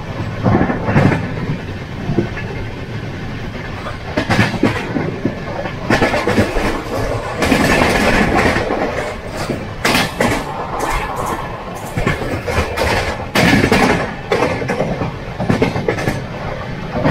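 Express passenger train running at speed: the coach's wheels clatter over rail joints over a steady rumble, heard from the coach doorway. The noise swells into louder rushes several times.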